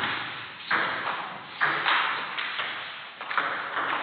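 Table tennis rally: the celluloid-type ball clicking off paddles and the table in quick alternation, a sharp tick every half second to a second, each with a short echo in the hall.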